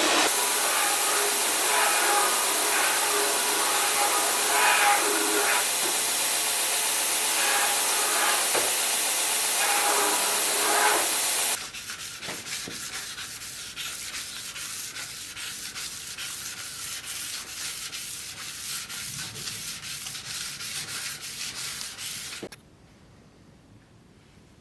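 Steel sword blade being sanded. A power sander runs steadily for about the first half. Then the sound drops abruptly to quieter, dense rubbing strokes, which stop suddenly near the end.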